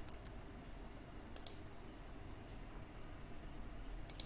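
Computer mouse clicks: a click at the start, a pair of clicks about a second and a half in, and another pair near the end, over a faint low hum.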